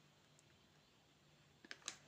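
Near silence: room tone, with a few faint clicks near the end.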